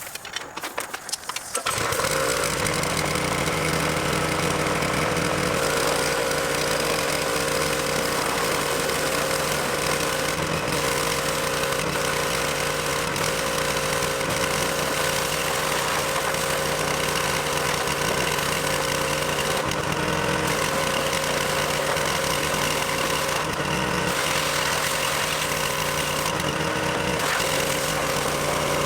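Pressure washer running steadily from about two seconds in: an even motor hum under the hiss of the spray, spraying degreaser and water over a riding mower.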